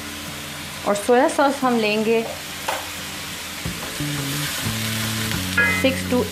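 Chopped carrots and capsicum stir-frying in a hot pan, a steady sizzle with the stirring of a spatula, under background music with a melody that rises and falls.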